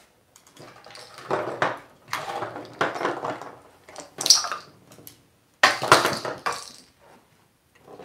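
Plastic bird toys clattering and rattling in a wooden drawer as an African grey parrot rummages through them, in several short bursts.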